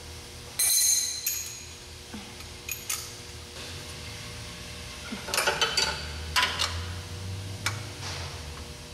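Steel hand tools, sockets on an extension bar, clinking and clattering against each other and the exhaust header flange as they are fitted to the flange bolts. There is one sharp ringing clink about half a second in, a few lighter taps, and a burst of clatter around five to six seconds in.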